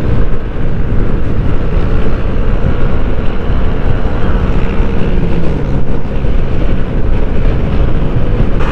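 Yamaha Aerox V2 155 scooter cruising at about 80 km/h, its single-cylinder engine and tyres droning steadily under a heavy rush of wind on the camera's microphone.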